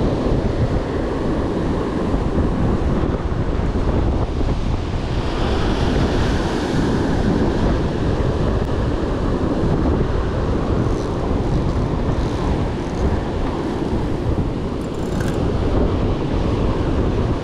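Wind buffeting the microphone over heavy surf breaking against the rocks of a sea cliff, a loud, steady rushing noise.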